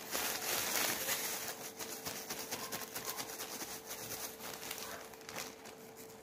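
Clear plastic glove crinkling and rustling as a hand pinches off and shapes pieces of soft chocolate cookie dough, the rustle growing fainter toward the end. A faint steady hum runs underneath.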